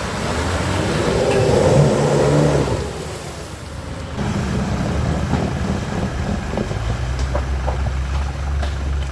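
Off-road 4x4 vehicle engine running under load. It eases off about three seconds in, then picks up again with a steady low hum.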